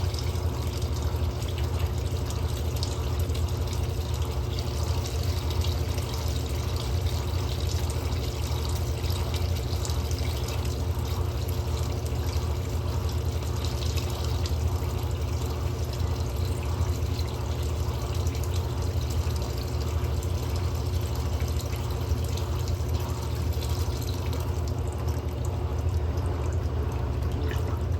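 Electrolux LM08A top-load washing machine running with water moving inside it: a steady low motor hum under an even rush of water, with no break.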